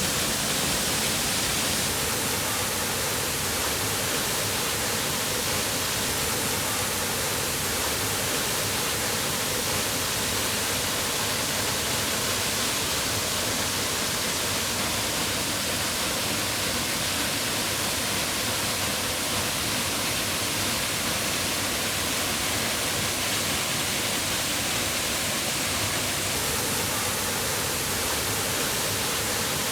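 Waterfall rushing steadily, an even roar of falling water with no breaks.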